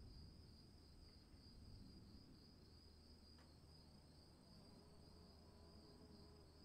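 Faint, steady high-pitched insect trilling, likely crickets, over a low background rumble.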